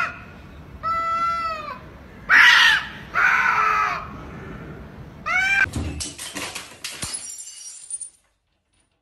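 Two cats yowling at each other in a standoff: several long, wailing yowls that rise and fall in pitch, with a louder, harsh cry in the middle. About six seconds in comes a quick run of knocks and clattering, and the sound cuts out shortly before the end.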